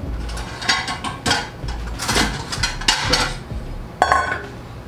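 Kitchen clatter: cookware and utensils being handled, a run of knocks and clicks ending in a sharp metallic clink about four seconds in.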